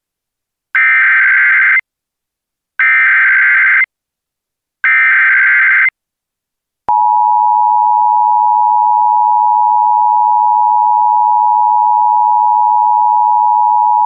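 Emergency Alert System signal: three one-second bursts of SAME header data about two seconds apart, then the steady two-tone attention signal starting about seven seconds in and holding. Together they announce an emergency alert message about to be read out.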